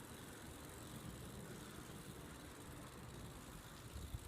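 Faint steady rumble and hiss of riding a bicycle, picked up by a phone's microphone, with a couple of small knocks near the end.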